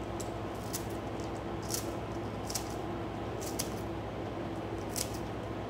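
Kitchen scissors snipping through lettuce leaves: short, crisp cuts at uneven intervals, about one a second, over a steady low hum.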